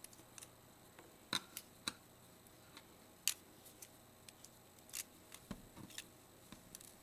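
Scattered small, sharp clicks and ticks of a screwdriver and tiny screws against the plastic body of a Sony S40 compact camera as its front-cover screws are taken out.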